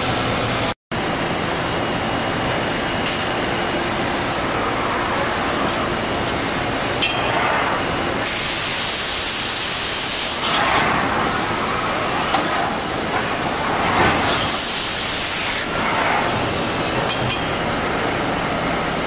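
Kitamura Mycenter horizontal machining center running, with a steady hiss of coolant and machine noise. Two louder bursts of hissing break in, the first about two seconds long and the second about one, with a few sharp clicks.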